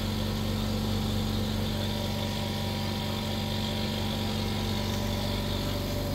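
Kyoto 50-litre oil-free 'silent' air compressor running: its twin-head pump and electric motor make a steady, even hum that neither rises nor falls.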